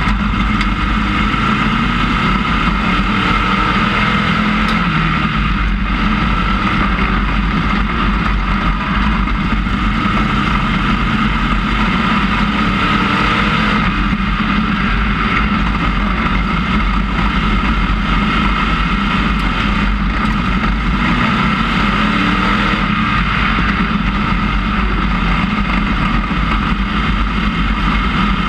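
IMCA Sportmod dirt-track race car's engine running hard at racing speed, heard from inside the cockpit: a loud, steady drone with slight dips every eight or nine seconds.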